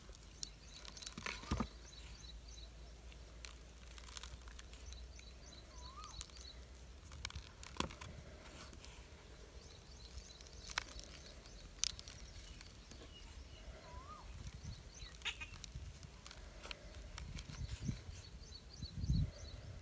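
Quiet outdoor background with scattered light taps and clicks of hands stuffing small brinjals with dry spice powder in a plastic bowl. Three short faint animal calls come about six, fourteen and nineteen seconds in.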